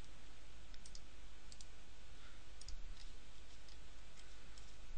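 Computer mouse clicking a few times at irregular intervals, faint, over a steady low hum and hiss.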